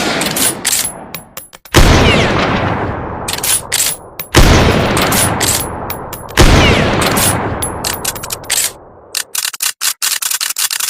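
Cavalry carbine sound effect: three loud rifle shots about two seconds apart, each with a long echoing tail. Sharp metallic clicks of the action being worked come between the shots, and a quick run of clicks comes near the end.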